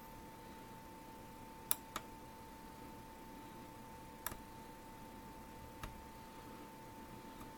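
Four faint, sharp clicks from small tools tapping on a circuit board during hand soldering, over a steady faint high whine.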